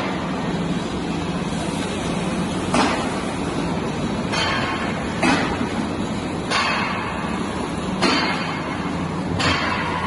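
Steady machinery hum of a running sectional garage door panel roll forming line, with short sharp clatters about every one and a half seconds.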